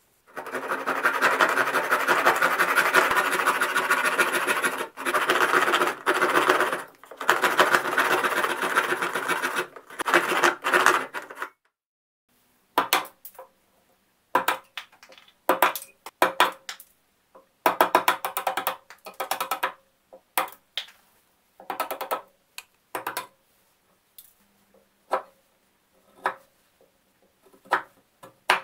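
A fine-toothed handsaw cutting into a dense bulletwood handle in steady strokes for about eleven seconds, with a few brief pauses. After a short gap, a chisel is pressed down around the end of the handle in short scraping paring cuts, one at a time, shaving the wood to form the ferrule seat.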